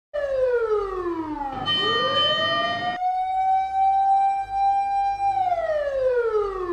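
Siren sound effect with a wail-like pitch pattern: it starts abruptly on a falling tone, winds back up, holds one steady high note for about two seconds, then winds down in a long slow fall.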